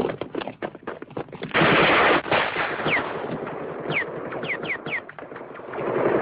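Battle sound effects from an old film soundtrack: rapid rifle and machine-gun fire, with a loud blast about a second and a half in and another near the end. Five short falling whines come between about three and five seconds.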